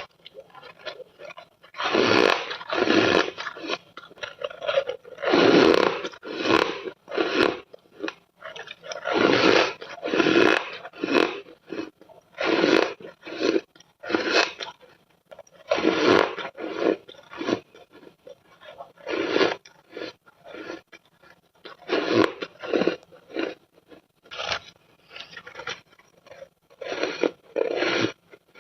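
Ice being bitten and chewed close to the microphone: repeated crunches and scrapes in quick runs with short pauses between.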